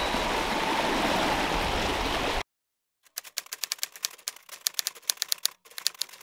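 Rough open sea rushing and breaking, cut off suddenly about two and a half seconds in. After a short silence comes a typewriter sound effect: rapid key clicks, with one brief pause, as text is typed out letter by letter.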